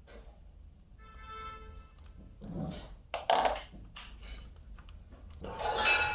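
Plastic computer mouse being handled and put back together: a sharp click and bursts of rubbing and rustling, with a brief tone about a second in.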